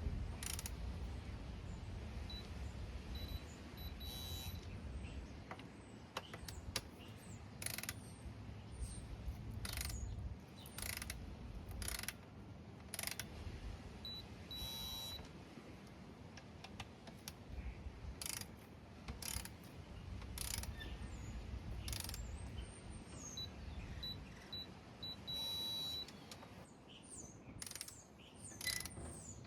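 Ratcheting torque wrench clicking in short bursts as bolts are tightened to a low torque of about 10, with a run of short high beeps that ends in a longer beep, three times.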